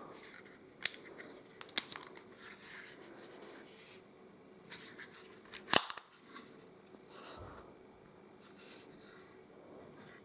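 Sharp metallic clicks from a Zoraki M807 blank pistol being handled and its small controls worked, with soft handling rustle between. Clicks come about a second in and a cluster near two seconds; the loudest is a single click a little before six seconds.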